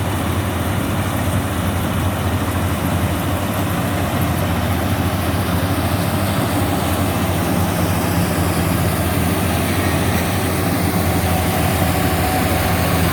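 Rice combine harvester's engine running steadily with a low hum.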